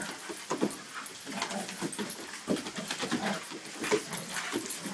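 A goldendoodle and a smaller dog play-fighting, with short, irregular growls and grunts coming every fraction of a second.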